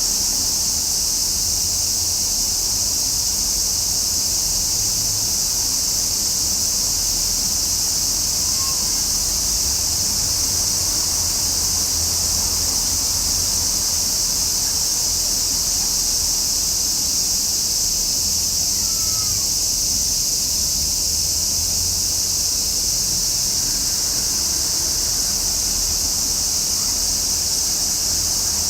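Cicadas singing in one steady, unbroken high-pitched drone, with a faint low rumble underneath.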